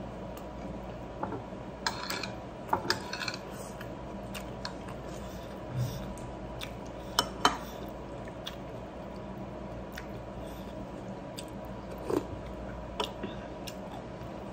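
A person eating rice and jengkol by hand: chewing and mouth smacks with scattered sharp clicks, the loudest pair about halfway through, over a steady low hum.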